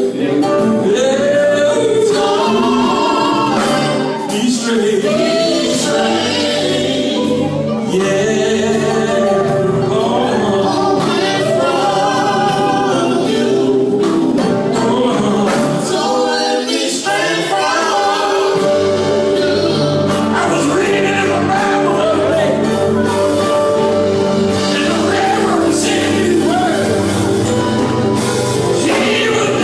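Gospel music: a vocal group singing together in harmony over a steady low accompaniment.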